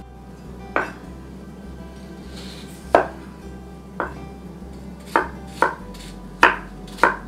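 Chef's knife dicing apple on a wooden cutting board: about seven sharp knocks of the blade on the board, spaced irregularly, coming quicker near the end.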